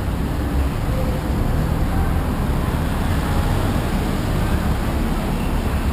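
Steady rumble of road traffic, a continuous noise with most of its weight in the low end.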